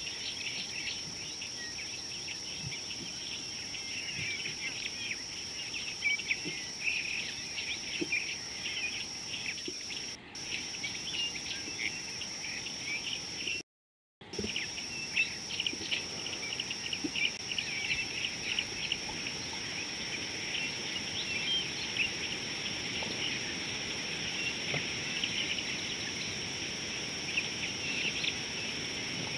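Dense chorus of many small birds chirping, over a steady high-pitched whine. The audio cuts out completely for about half a second midway.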